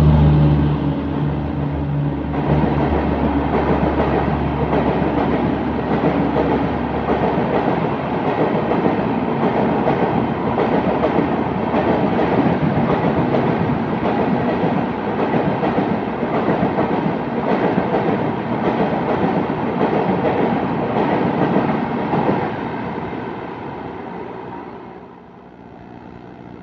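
A goods train passing at speed on the adjacent track: steady rumble and clatter of wagon wheels over the rails, fading away about 23 to 25 seconds in. A locomotive horn dies away in the first two seconds.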